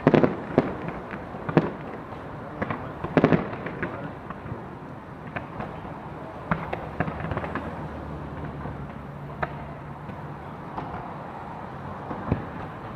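Fireworks display going off: a rapid run of bangs at the start and another cluster about three seconds in, then scattered single bangs thinning out, with one more near the end.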